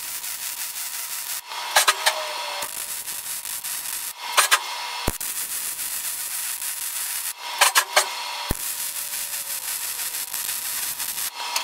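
Arc welding a steel top plate onto a dump-truck brake drum: a steady crackling hiss from the arc, laid down as several separate welds of two to three seconds each, with short breaks between them.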